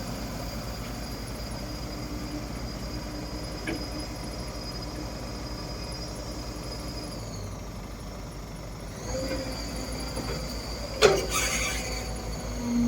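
Caterpillar 312B excavator's diesel engine running steadily with a high whine that dips and recovers about two-thirds of the way through, and one sharp clank near the end.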